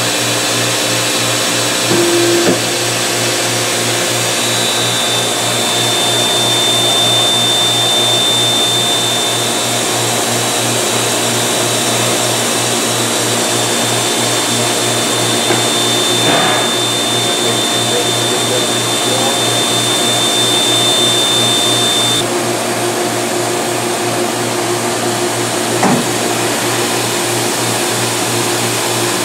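Studer S145 CNC cylindrical grinder running: a steady mechanical whir with a hiss. A thin high whine comes in a few seconds in and cuts off suddenly about three-quarters of the way through, and there are two light clicks.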